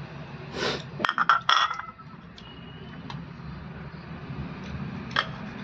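A white ceramic plate clinking against the rim of a steel bowl, a quick run of sharp ringing clinks about a second in as spices are tapped off it.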